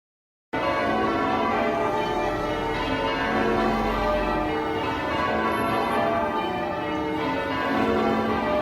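Church bells being change rung: a ring of tower bells sounding one after another in a continuous stream of overlapping, ringing tones, starting abruptly about half a second in.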